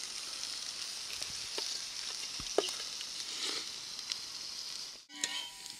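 Turkey pieces frying in a pan over campfire embers: a steady sizzle with a few faint pops. It cuts off abruptly about five seconds in.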